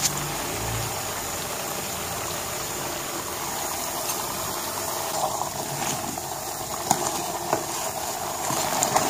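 Carrot halwa cooking in ghee in a pot, a steady sizzling hiss. From about halfway through, a spoon scrapes and clicks against the pot as it is stirred.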